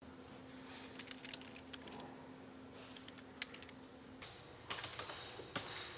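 Typing on a computer keyboard: irregular clusters of key clicks, with a faint steady hum that stops about four seconds in.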